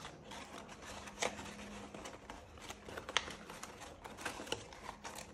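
Folded paper of an origami herringbone form rustling and crackling irregularly as hands press its collapsed sides flat, with a couple of sharper crackles, about a second in and about three seconds in.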